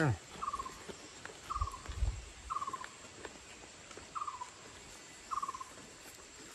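A small animal calling in the background: short chirps, each a quick run of pulses dropping slightly in pitch, repeated five times about a second apart. A short falling sound at the very start and a couple of low thumps about two seconds in.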